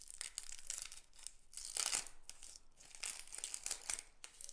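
Dry onion skins crackling and tearing as they are peeled off the bulbs by hand: an irregular run of crinkly, papery rustles, loudest about two seconds in.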